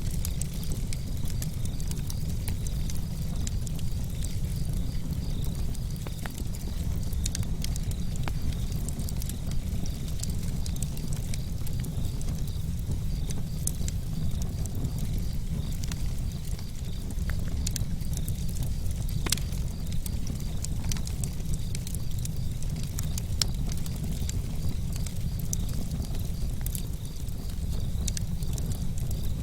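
Campfire burning, with irregular sharp crackles and pops over a steady low rumble.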